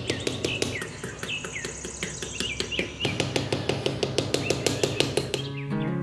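Small hammer tapping wooden stick posts into sand, in rapid, evenly spaced light taps, with birds chirping over it. Music with held notes comes in near the end.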